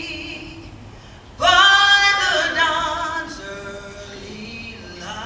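Singing in long held notes; a louder phrase comes in about a second and a half in and slowly fades.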